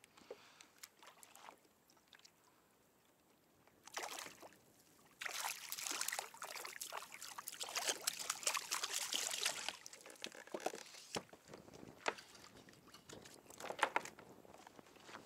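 Small hooked kahawai splashing and thrashing at the surface beside a kayak as it is pulled up on light line. There is a short splash about four seconds in, then a few seconds of steady splashing.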